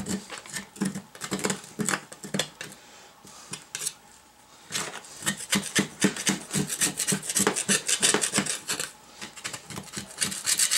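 Flat metal scraper rasping over a greasy steel suspension part in quick short strokes, scraping off caked-on grease and dirt. The strokes are sparse at first, pause briefly a few seconds in, then come fast and close together in the second half.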